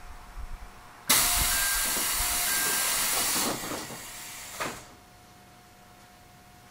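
A 373-series electric train standing with a sudden loud hiss of compressed air venting, about two and a half seconds long and then tailing off, with two short faint tones inside it; afterwards only a quiet steady hum.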